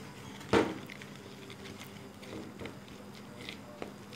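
A spoon mixing dry gram flour and rice flour in a plastic bowl as water is added, with one sharp knock about half a second in and a lighter tap near the end, over a steady low hum.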